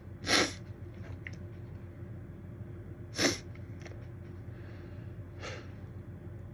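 A person sneezing: two sharp sneezes about three seconds apart, then a fainter breathy burst a little past five seconds.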